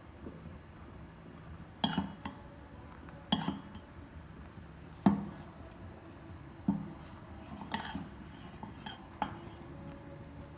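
A kitchen utensil knocking and clinking against cookware, about eight separate strikes at uneven intervals, the loudest about five seconds in.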